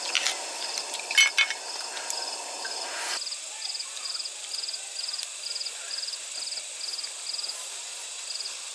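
Night insects chirping steadily in short, fast, high trills, about two a second. A few sharp clinks about a second in are the loudest sound.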